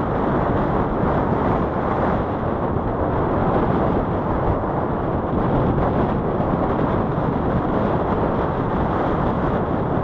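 Strong wind buffeting the camera microphone: a steady, loud noise with no breaks.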